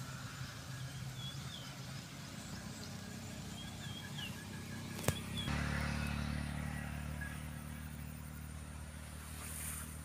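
An engine running steadily, growing louder a little past halfway through, with a single sharp click just before the rise.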